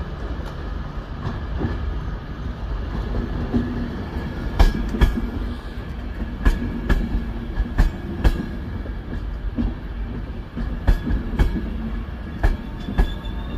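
Loco-hauled Mk4 passenger coaches rolling slowly past along the platform with a steady low rumble. From about a third of the way in, the wheels click over a rail joint in pairs of sharp clicks, one pair every second or two.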